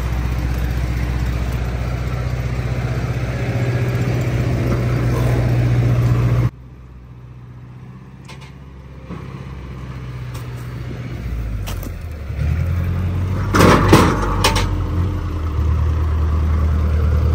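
Belarus MTZ-80 tractor diesel engine running steadily. About a third of the way in the sound drops abruptly to a much quieter stretch, then the engine hum builds again. A short cluster of clattering knocks, the loudest sound, comes a few seconds before the end.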